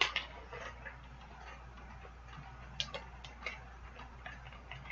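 Hands handling a small cardboard blind-box package: scattered light clicks and taps, a little sharper near the middle, over a low steady hum.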